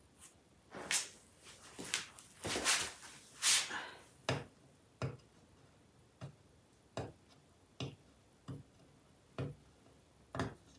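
Scraping and rustling for a few seconds, then a run of light, sharp knocks, roughly one a second.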